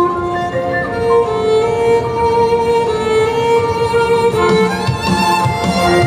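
Solo violin playing a slow, lyrical melody, holding one long note for about three seconds before moving on, over a fuller accompaniment underneath.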